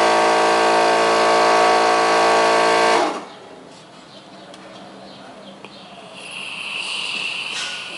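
A vehicle horn sounding one long, loud, steady blast that cuts off about three seconds in. A fainter high-pitched steady tone follows near the end.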